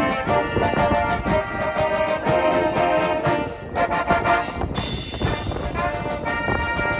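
Brass band with tubas and a drum kit playing a lively tune to a steady beat. The music breaks off briefly about three and a half seconds in, then comes back in.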